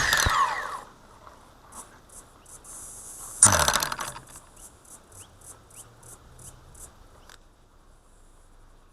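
Hexacopter's electric motors winding down to a stop after crashing into a tree. About three and a half seconds in comes a sharp knock with a brief motor whir falling away, then a run of faint, evenly spaced ticks.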